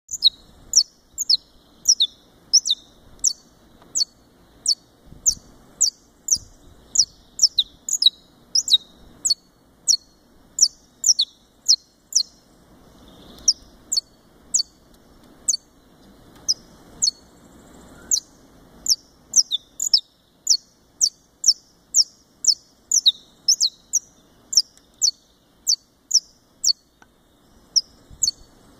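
Saffron finch of the Brazilian subspecies singing: a long, steady run of sharp, high notes, each sweeping quickly downward, about two a second, broken by two short pauses.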